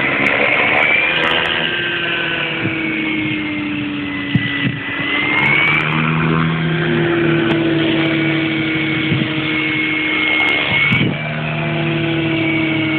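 A motor engine running steadily, its pitch drifting slowly up and down as the speed changes, with a brief dip about eleven seconds in.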